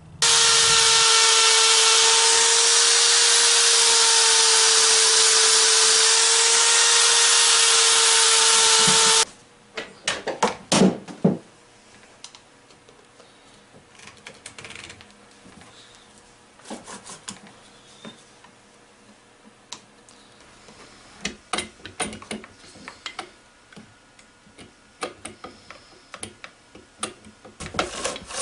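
A chainsaw running at a steady high speed, starting and cutting off abruptly after about nine seconds. Then scattered clicks and knocks as the chainsaw and its mini mill attachment are handled on a workbench.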